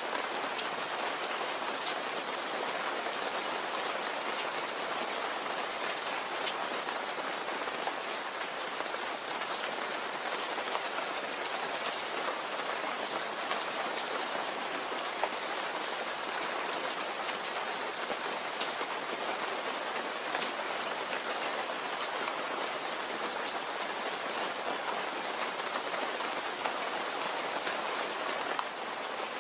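Steady, even rain falling, with many individual drops ticking sharply on a surface.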